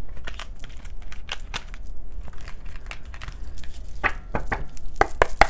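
A deck of oracle cards being shuffled by hand: a run of quick papery flicks and snaps of card stock, with a cluster of louder snaps near the end.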